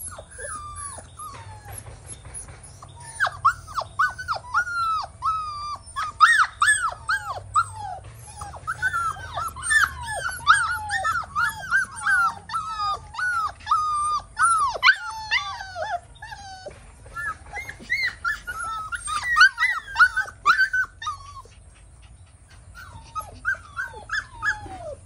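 Husky puppies whining and crying: a rapid string of short, high, downward-falling cries, often overlapping. Sparse at first, thick after a few seconds, and thinning out near the end.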